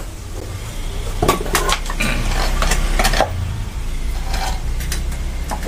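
A strip of old car tyre rubber being worked with a metal cutting blade: a few sharp clicks and clatters of the tool, bunched about one to three seconds in.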